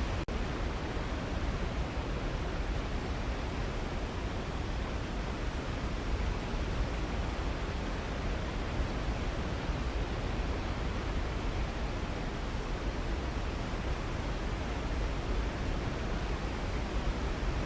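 Waterfall: a steady rush of falling water, even and unchanging, with one momentary dropout near the start.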